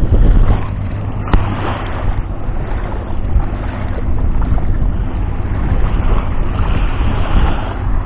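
Wind buffeting the microphone over shallow sea water lapping and sloshing at the shoreline, with a single sharp click about a second in.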